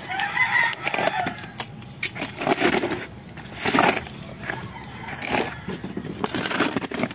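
Rustling and crinkling of strawberry leaves and a plastic plant pot being handled, in a few separate bursts.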